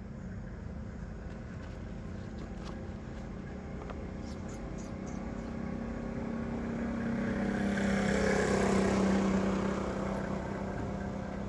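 A vehicle driving past on the road, growing louder to a peak about eight or nine seconds in and then fading, over a steady low hum.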